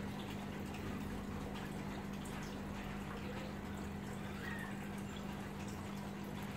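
Aquarium water circulation: a steady low hum from the tank's pump or filter, with trickling and dripping water and faint scattered ticks.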